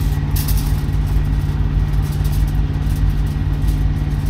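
Truck engine idling steadily, a low, even drone with no change in speed.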